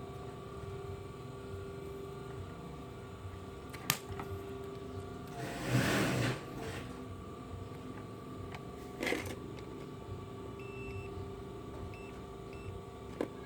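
Handling noises as small parts and a tester are worked by hand: a sharp click about four seconds in, a brief rustle around six seconds and a shorter one near nine seconds, over a steady hum.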